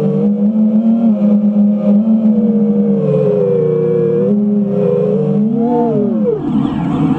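FPV quadcopter's electric motors and propellers whining under steady throttle, their pitch swinging up, dropping sharply and climbing again near the end as the throttle is cut and reapplied.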